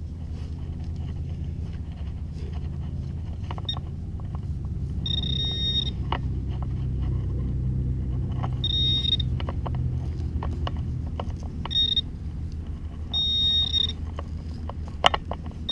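Garrett metal-detecting pinpointer giving its high-pitched pulsed alert in four short bursts as it is swept over the hole near a buried target, over a steady low rumble. Soft clicks and scrapes of a knife digging in soil.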